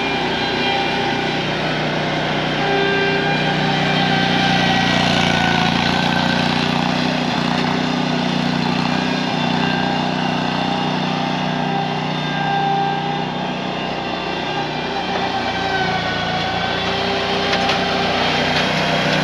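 Riding lawn mower's engine running steadily while the mower is driven, its pitch shifting a little now and then.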